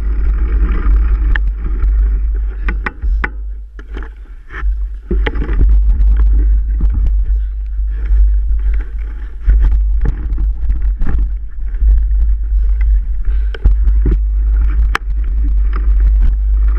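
Mountain bike riding over rough ground, with many irregular knocks and rattles. Heavy wind rumbles on the microphone throughout.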